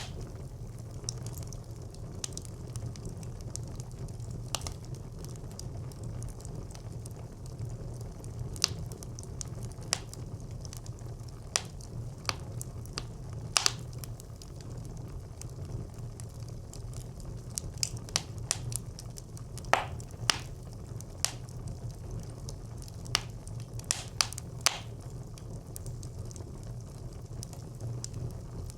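Fire burning in a brick clay stove, crackling and popping at irregular moments over a steady low rumble, with the pops coming more often in the second half.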